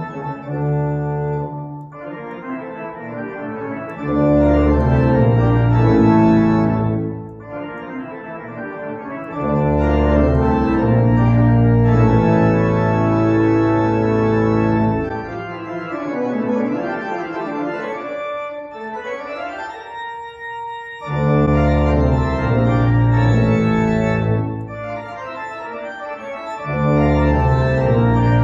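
Organ music: sustained chords played in phrases, loud full passages with deep bass notes alternating with quieter, lighter ones.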